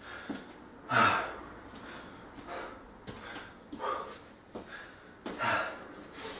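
A man breathing hard through the mouth while recovering from a high-intensity interval, with a heavy puffing breath every second or so, the loudest about a second in.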